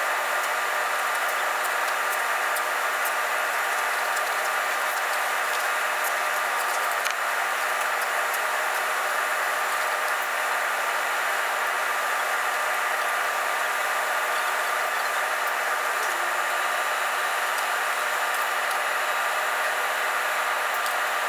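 Steady, unchanging drone of construction machinery running at a concrete slab pour, with a few faint ticks.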